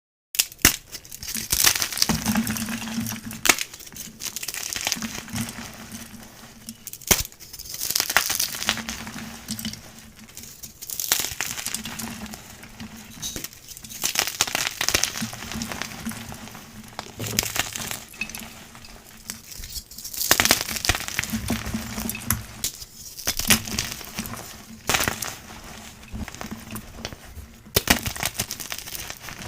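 Blocks of gym chalk being crushed and crumbled, a crunchy crackling that comes in repeated bursts every few seconds, with sharp snaps as pieces break.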